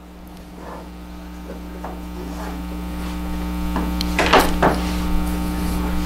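Steady electrical mains hum that grows louder, with two sharp wooden knocks a little over four seconds in as the wooden hanger is laid down on the board.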